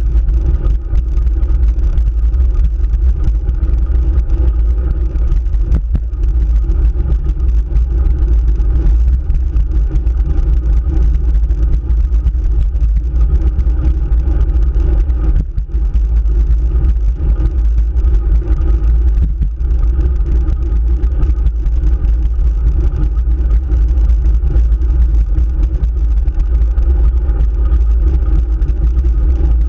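Steady low rumble of road vibration and wind picked up by an action camera mounted on a road bike's handlebars as the bike climbs a paved road.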